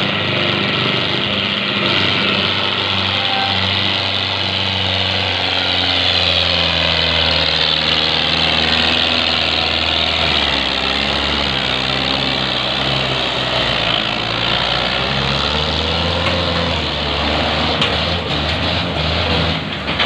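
Belarus 510 tractor's four-cylinder diesel engine running steadily, its pitch shifting up and down as the throttle changes.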